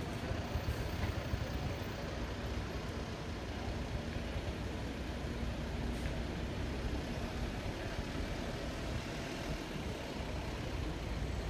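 Steady low rumble of city traffic, with no thunder from the storm overhead.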